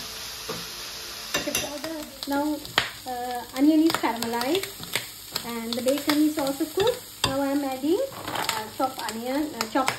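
A metal fork stirring and scraping bacon and onion around a frying pan as it sizzles, with short clicks and repeated squeaks that rise and fall in pitch from the fork dragging across the pan.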